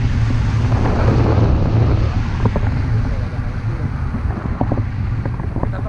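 Wind buffeting the camera's microphone in tandem paraglider flight: a loud, steady low rumble.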